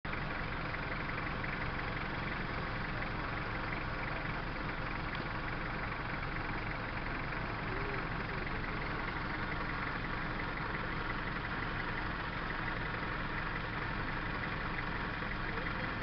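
Vehicle engine idling steadily, a constant low running hum with no change through the stretch.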